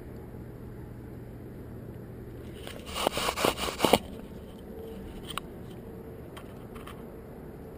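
Rubbing and scraping right on the GoPro Hero 2's lens housing as the lens is wiped clean: a burst of several quick scrubbing strokes lasting about a second, about three seconds in, over a steady background hiss. A few faint clicks follow.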